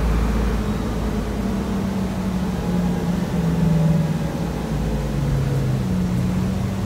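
Inside a moving 2004 Nova Bus LFS city bus: the engine and drivetrain drone over a low road rumble, with a hum that shifts in pitch several times, dropping a little past the middle and rising again near the end as the bus changes speed.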